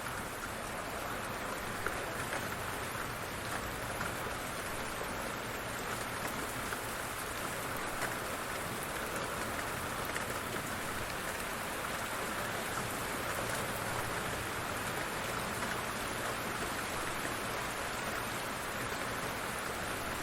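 Steady rain falling, an even hiss with now and then a louder single drop.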